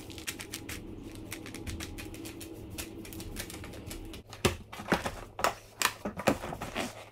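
Fast, light pattering and clicking of sprouted oat seeds shaken from a plastic container and spread over a tray of soil, followed by fewer, louder clicks and crackles as a clear plastic cover is handled and fitted over the tray in the last few seconds.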